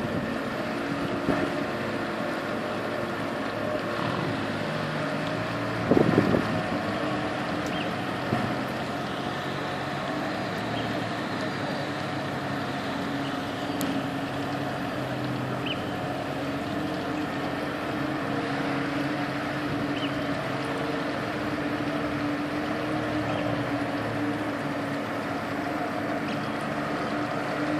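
RNLI launch tractor's diesel engine running steadily in the harbour shallows as it moves the Atlantic 75 lifeboat on its carriage, with a steady drone. A brief loud low thump comes about six seconds in.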